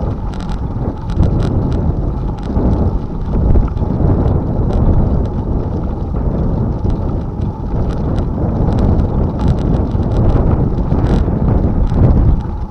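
Heavy wind noise on a handlebar-mounted camera's microphone as a bicycle rolls along a gravel path, with scattered clicks and rattles from the tyres on the gravel and the bike shaking.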